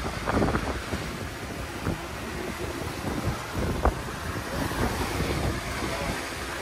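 Wind buffeting the microphone over the rush of water along the hull and in the wake of a motor cruiser running on electric drive, with no combustion engine heard. A few brief knocks stand out, the sharpest about four seconds in.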